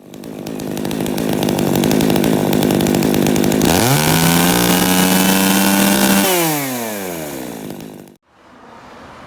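Two-stroke chainsaw engine running at a low speed, then revved hard to full throttle about four seconds in and held there for a couple of seconds. It then winds back down before the sound cuts off abruptly, leaving a fainter steady background noise.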